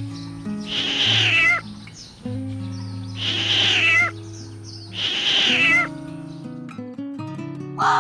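A cat meowing three times, each call under a second and about two seconds apart, over soft background music.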